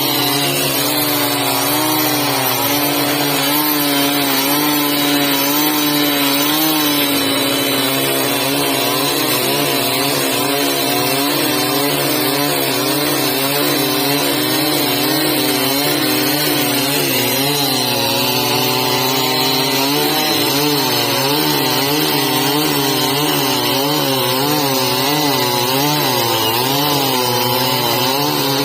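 Chainsaw running under load while cutting a tree. The engine note wavers up and down as the chain bites into the wood, and in the last third it swings about once a second.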